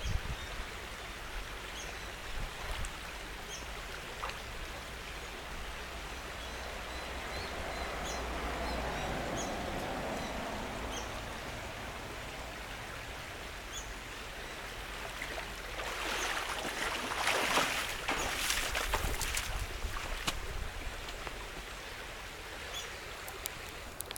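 Outdoor creekside ambience: a steady rushing noise with faint high chirps every second or two, and a louder rustling passage about two-thirds of the way through.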